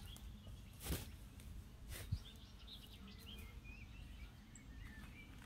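Faint birds chirping over quiet garden background noise, with two soft knocks about one and two seconds in.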